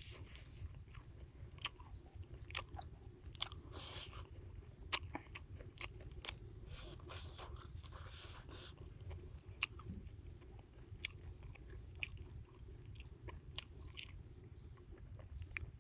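A person biting into and chewing crispy fried egg-battered mushrooms, with irregular sharp crunches and chewing sounds.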